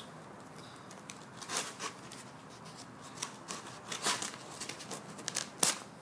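Scissors cutting through a folded strip of tar paper: irregular snips and crackles of the stiff paper, the sharpest about four seconds in and near the end.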